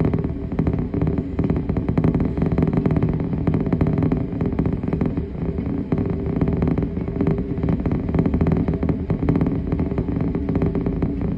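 Norfolk Southern freight train's hopper cars rolling past: a steady low rumble with a fast, continuous clatter of steel wheels on the rails.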